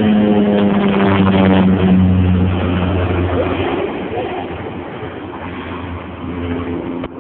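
Crop-duster airplane's engine droning loudly as it passes low, the pitch dipping a little about two seconds in, then fading as the plane flies away.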